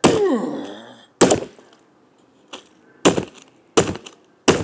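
A brick slamming down on a Furby toy against a hard surface: five heavy blows and one lighter knock, roughly a second apart. The first blow is followed by a falling tone that dies away within a second.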